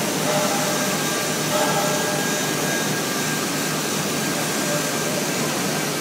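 Steady industrial roar of a steel foundry floor while molten steel is bottom-poured from a ladle into sand molds, with the mold gases burning off in flames. Faint short tones come and go twice in the first two seconds.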